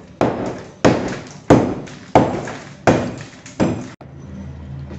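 Six heavy thuds, evenly spaced about two-thirds of a second apart, each ringing out briefly. They stop abruptly about four seconds in, leaving a low steady hum.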